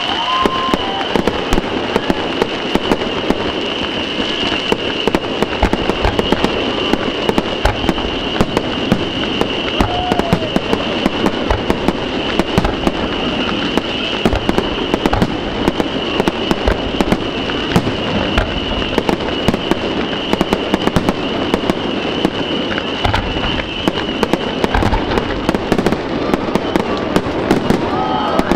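Aerial fireworks display: shells bursting in a dense, continuous barrage of sharp bangs and crackling, with a steady high-pitched hiss underneath.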